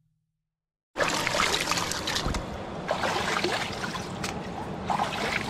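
Silent for about a second, then river water splashing and trickling as a person stands waist-deep in the water, with water streaming and dripping off her body.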